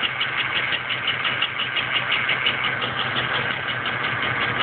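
GM 3.4 L pushrod V6 idling with a continuous, rapid, evenly spaced knock or tick over a steady engine hum. The owner can't tell whether it is a rod knock or a rocker arm/push rod tick, and hopes it is a push rod.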